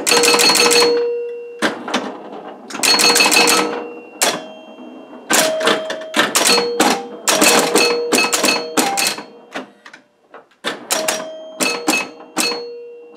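1976 Williams Aztec electromechanical pinball machine in play: bursts of relay, solenoid and score-reel clatter, each set ringing short bell-like chime tones as the ball scores. There is a brief lull about ten seconds in.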